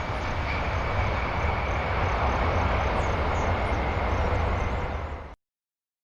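Aircraft engines running: a steady rumble with a faint high whine, which cuts off abruptly about five seconds in.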